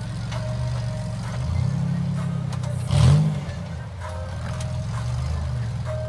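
Rock crawler buggy's engine running at low revs under load on a near-vertical rock climb, blipped in short bursts, with a sharp rev about three seconds in.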